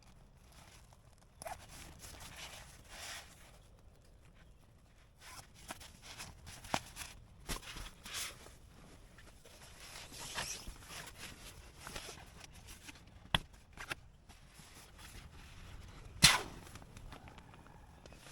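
Sleeping bag and sleeping pad being packed away: fabric rustling and scraping in short bouts, with scattered clicks and one sharp, loud knock near the end.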